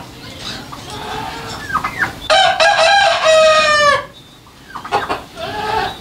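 A rooster crowing once, a long call starting about two seconds in that drops slightly in pitch at its end, with short clucking calls before and after it.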